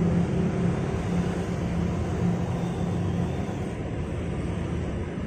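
Handmade RC model trucks' motors and gearboxes running, a steady low hum over a rough noisy whir that weakens about halfway through.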